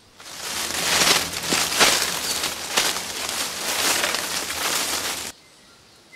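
Sound effect of a bear rubbing its back against tree bark: a dense scratching noise made of many quick strokes over a faint low hum. It fades in at the start and cuts off abruptly about five seconds in.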